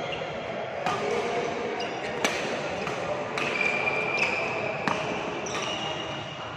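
Badminton rackets striking a shuttlecock in a rally: sharp hits about every second, with short high squeaks in between and voices in the background.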